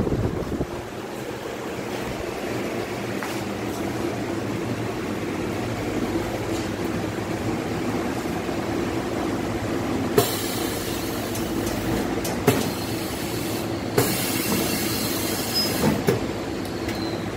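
Shrink-wrapping machine with its heat shrink tunnel running with a steady mechanical hum. A few sharp clacks come through it, and two stretches of hiss, each about two seconds long, start around ten and fourteen seconds in.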